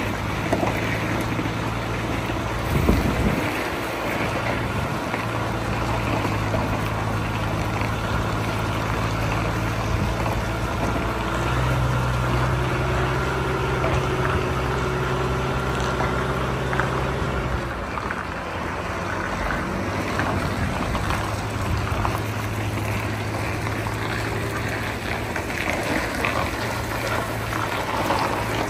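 Diesel engine of a heavy prime mover pulling a tanker road train away at low speed, a steady low drone that climbs in pitch about twelve seconds in, drops back around eighteen seconds, then pulls on again. A single knock about three seconds in, with wind on the microphone throughout.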